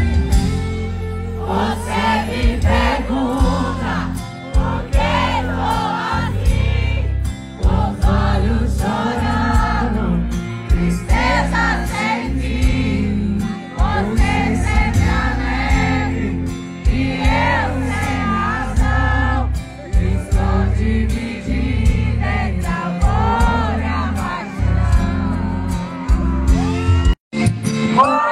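Live sertanejo band music with electric guitar, bass and drums under female lead vocals, and the crowd singing along. The audio cuts out for a moment near the end.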